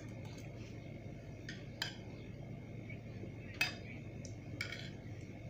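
Metal spoon clinking and scraping against a plate of rice while eating, a few light clinks spread over several seconds.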